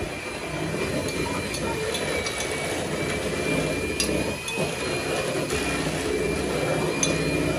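Steady mechanical hum and whir with a thin high whine running through it, with a sharp light clink about four seconds in and another near the end, as utensils knock against a pot or plate.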